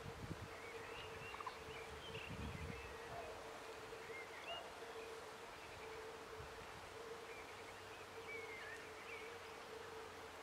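Dusk outdoor ambience: scattered short chirps and trills of small birds calling over a steady faint hum, with a few low thumps in the first few seconds.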